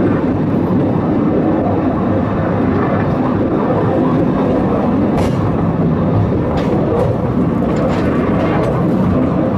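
Funicular car running along its rails: a steady rumble, with a few faint clicks in the second half.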